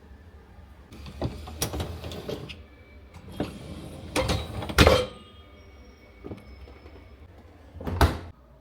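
Household handling sounds: a run of clicks, knocks and rustles, with the loudest knock about five seconds in and another sharp knock near the end, over a low steady hum.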